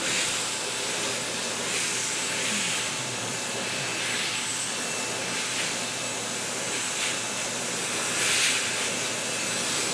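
Vacuum cleaner running steadily with its hose nozzle drawn over a cat's fur, the hiss of the suction swelling briefly now and then as the nozzle moves.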